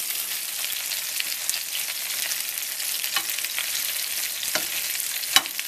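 Chicken thighs sizzling in hot vegetable oil in a skillet: a steady hiss with scattered small crackles, and a sharp click about five seconds in.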